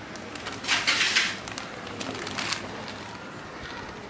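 Maida (refined wheat flour) being poured into a stainless steel bowl: a short rushing pour about a second in, followed by a few scattered light ticks and rustles.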